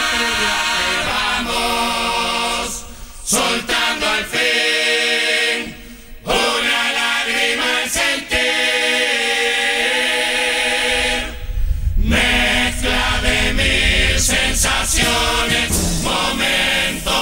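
Murga chorus singing in close harmony, many voices holding long chords in phrases with short breaks between them. About twelve seconds in, low drumming and sharp percussion strikes join beneath the voices.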